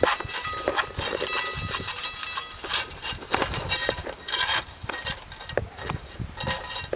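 Shiba puppy licking and nosing at a stainless steel bowl, the bowl clinking and rattling in many irregular sharp knocks, some of them ringing briefly.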